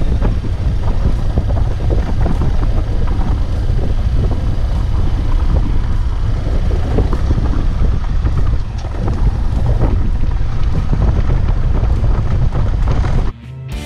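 A motorcycle riding along a dirt road, its engine running under heavy wind buffeting on the microphone. Just before the end it cuts off suddenly and rock music begins.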